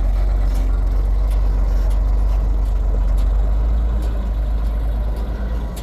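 Steady low rumble that eases off near the end.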